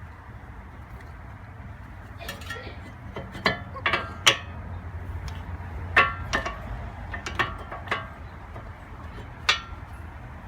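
Metal brake pads and their backing shims clinking and clicking as they are handled and fitted into the brake caliper: a series of sharp, briefly ringing metallic taps from about two seconds in, over a steady low hum.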